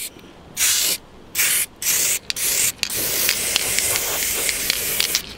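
Aerosol can of heat-resistant spray paint spraying onto cast iron: four short bursts of hiss, then one long continuous spray from about halfway.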